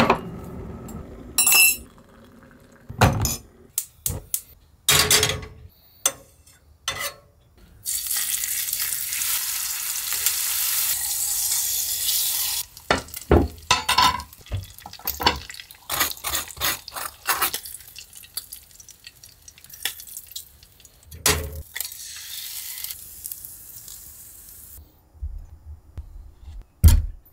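Breakfast being made in a small galley: clinks and knocks of a mug, pan and cutlery set down and handled, and bacon frying in a pan with a steady loud sizzle that starts and stops abruptly about a third of the way in, then a fainter sizzle later on.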